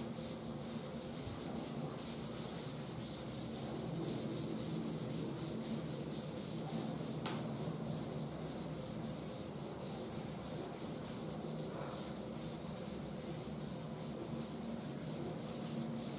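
Board duster rubbing across a chalk blackboard in rapid, evenly repeated strokes, wiping the chalk off.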